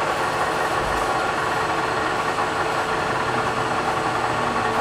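Steady machine hum with a constant tone, from a powered-up Clausing CNC lathe running idle in the shop.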